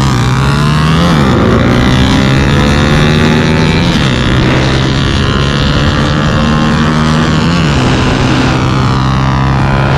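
Small-displacement motorcycle and scooter engines at full throttle in a drag race launch. A steady high drone holds throughout, while another engine's pitch climbs and drops back at each gear change, about a second, four seconds and seven and a half seconds in.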